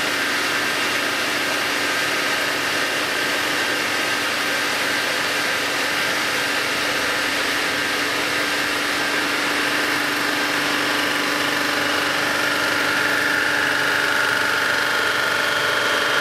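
Sunnen HBS-1300 cylinder-head resurfacing machine running steadily while its table feeds an aluminium cylinder head under the cutter. A constant mechanical hum with held whining tones, the higher whine growing a little stronger in the last few seconds.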